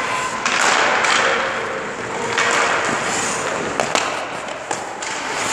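Ice skate blades scraping across the ice in two long hissing strokes, then two sharp clacks of stick and puck just before four seconds in as a shot is taken on the goalie.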